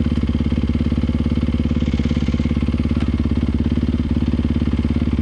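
Husqvarna FX350's single-cylinder four-stroke engine idling steadily with the bike standing still, an even, rapid beat.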